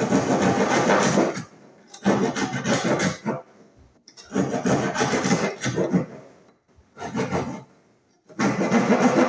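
Hand keyhole saw cutting into a wooden wall board. It goes in five bouts of quick back-and-forth strokes, with short pauses between them; the fourth bout is the shortest.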